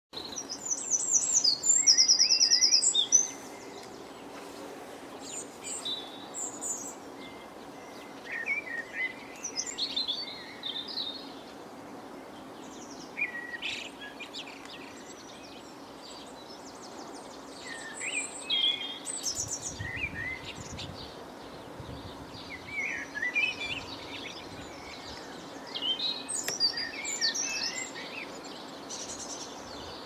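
Blue tits and sparrows calling and chirping: a loud run of rapid, high calls in the first three seconds, then scattered short chirps over steady low background noise.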